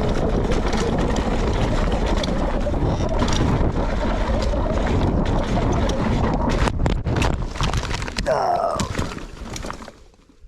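Mountain bike descending fast: wind rushing over the mic and tyre and trail rumble, with a few hard knocks and rattles around seven seconds in. A rider's pained cry follows about a second later, then the noise dies away, the sound of a crash.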